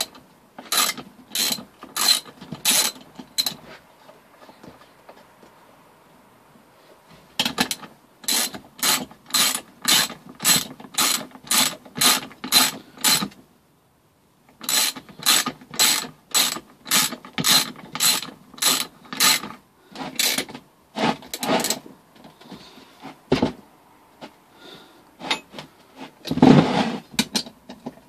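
Ratchet wrench clicking as bolts on a 3 hp small engine are run down hand-tight, in runs of quick back-and-forth strokes about two a second with short pauses between sets. A louder clunk comes near the end.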